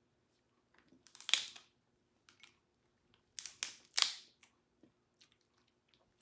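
Cooked lobster tail shell cracked and pulled apart by hand: a loud crunchy crack about a second in and two more around three and a half and four seconds in, with faint clicks between.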